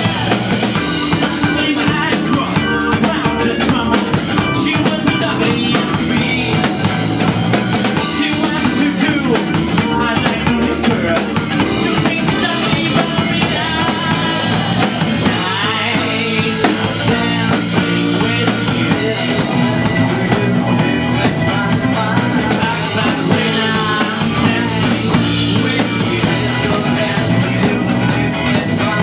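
Live rock band playing loud, with a busy drum kit driving the song.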